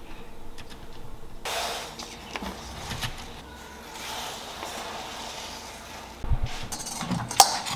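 Kitchen handling sounds as pleated momo dumplings are set into an aluminium steamer tier: soft rustling, a few low thuds about six seconds in, and a sharp knock near the end.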